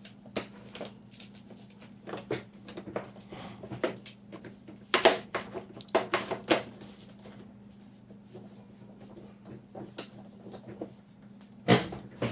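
A wet wipe rubbing and squeaking over the plastic sensors and charging contacts of a robot vacuum, with light clicks and knocks as it is handled, busiest around the middle and with one sharper knock near the end. A steady low hum runs underneath.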